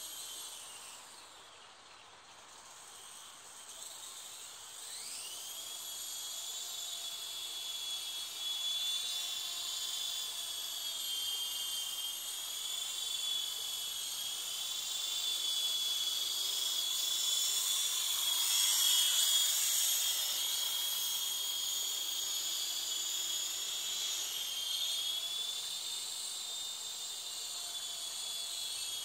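High-pitched electric whine of a WL Toys V913 RC helicopter's motor and rotors. It spools up steeply about five seconds in, then wavers in pitch as the helicopter is flown. It is loudest a little past the middle.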